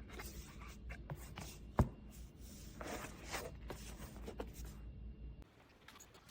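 A board book being handled: rustling and soft taps of its cardboard pages, with one sharp click a little under two seconds in.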